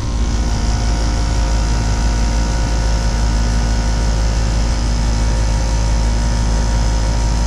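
Air-Flo central air conditioner's outdoor condensing unit running with a steady hum from its compressor and condenser fan.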